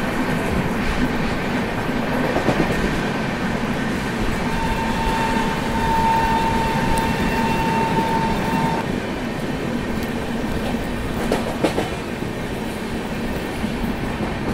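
Running noise of an Indian Railways express train, heard from the coach doorway: a steady rumble and wheel clatter. A thin, steady high tone lasts about four seconds in the middle, and a few sharp clacks come near the end.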